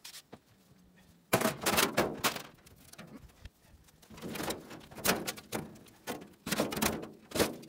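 Sheet metal of a stripped gas dryer cabinet clattering and scraping as it is handled: a burst of bangs about a second and a half in, then a run of knocks and scrapes over the last few seconds.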